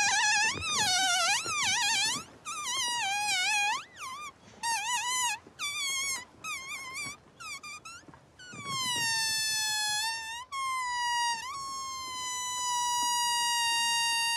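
Air squealing out of an inflated rubber balloon as its neck is stretched and pinched between the fingers, played like a tune: short wavering, warbling phrases, then in the second half one long high squeal that slowly sinks in pitch.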